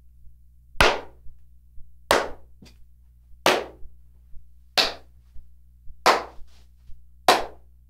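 A person clapping hands, six sharp claps in a steady rhythm about 1.3 seconds apart, each trailing off in a short room echo. It is picked up by a shotgun condenser microphone.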